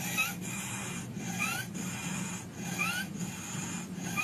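Rasping, saw-like breaths repeated about four times, roughly a second and a half apart, each with a short rising whistle. It is the stridor (喘鸣) that can signal acute laryngitis in a child.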